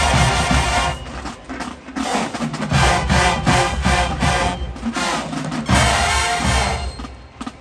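Marching band of brass and drums playing loud full-ensemble blasts, broken by a quieter passage about a second in and dropping away near the end.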